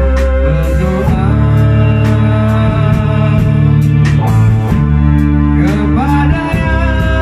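A rock band playing live in a small rehearsal room: distorted electric guitar, bass guitar and drum kit with cymbal strokes, and a man singing over them.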